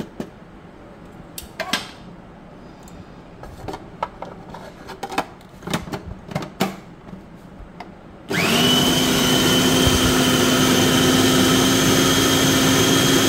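Plastic clicks and knocks as the food processor's lid is fitted onto the bowl, then about eight seconds in the electric motor starts with a brief rising whine and runs steadily and loudly, mincing raw chicken.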